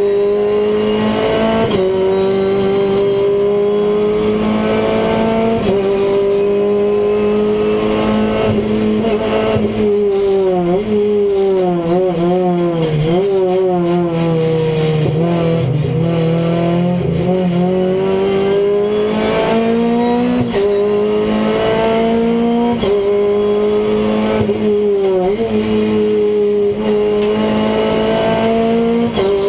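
Renault Clio race car's engine heard from inside the stripped cabin at full throttle: the pitch climbs through each gear and drops sharply at upshifts every three or four seconds. Midway the revs fall and waver through braking and downshifts for a corner, then climb through the gears again.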